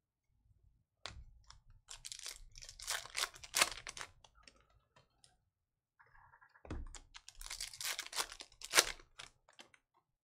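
A stack of Panini Contenders football trading cards being flipped through by hand: stiff card edges snapping and rustling against each other in quick clicks. It comes in two runs, with a pause of about a second in the middle.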